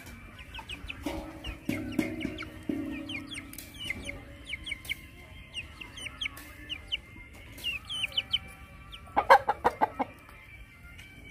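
Chicken clucking, with a quick run of loud clucks about nine seconds in. High, short chirps repeat throughout.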